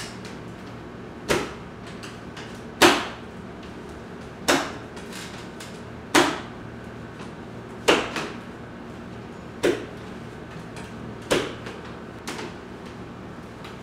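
Sharp knocks at a slow, even pace, about one every second and a half, seven strong ones and a weaker one near the end, each with a short ring-out.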